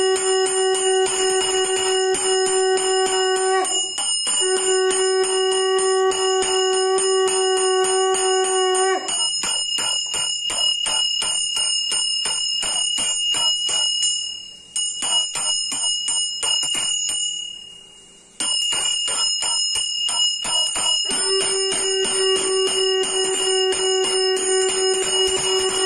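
Brass puja hand bell rung fast and continuously, with a conch shell blown in long steady notes over it, breaking off for about twelve seconds in the middle and starting again near the end. The bell briefly stops twice during the break.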